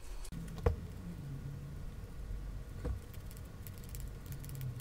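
Quiet handling of a spinning reel's main gear: a shop towel wiping it, two light clicks, then a toothbrush scrubbing the gear teeth with quick scratchy strokes near the end, over a low steady hum.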